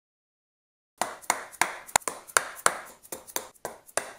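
Sharp taps on a wooden block held against the engine case, about three a second and starting about a second in. They are driving a new left crankshaft oil seal into a two-stroke Yamaha DT175's crankcase without a proper seal-seating tool.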